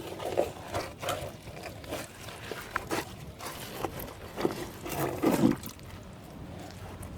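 Water trickling and dripping, with irregular small knocks and scrapes from wet contents of a safe pulled from a canal being handled.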